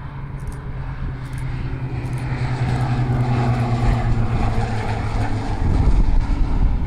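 Beechcraft King Air twin turboprop landing, its propellers giving a steady low drone that grows louder as it passes close. The drone stops about five and a half seconds in, leaving a rougher low rumble.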